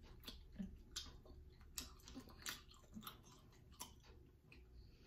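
Faint chewing of sticky rice pudding: soft, irregular wet mouth clicks and smacks.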